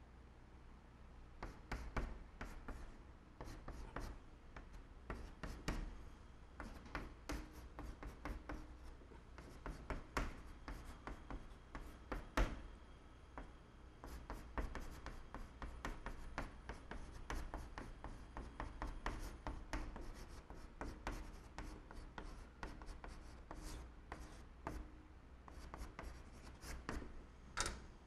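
Chalk writing on a blackboard: a quiet, irregular run of taps and short scratches as stroke after stroke of Chinese characters goes on, with one sharper tap about midway.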